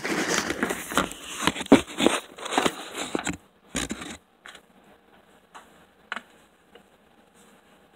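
Handling noise from a phone being moved against clothing: dense rustling and scraping crackle with sharp clicks for about three seconds, one more short burst around four seconds in, then only a few faint clicks.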